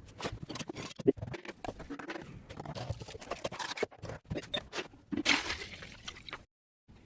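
Irregular knocks, clicks and scrapes of a hard object being handled, cutting off abruptly near the end.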